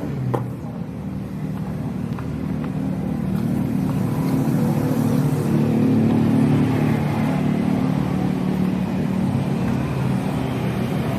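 Small electric motor of a portable sewing machine, freshly reassembled after servicing, running with a steady hum. It gathers speed and loudness over the first few seconds and then runs evenly. There is a single click just after the start.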